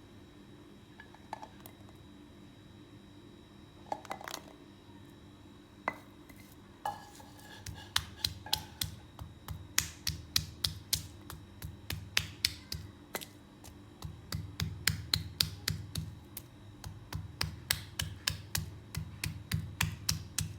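Kitchen knife chopping on a cutting board: a few scattered knocks, then from about seven seconds in a steady run of sharp chops, two to three a second, with brief pauses.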